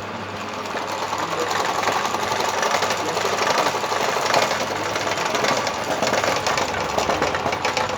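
Coil winding machine running steadily as it winds wire for a ceiling fan coil, with a fast, even mechanical whirring clatter. It builds a little over the first second or two.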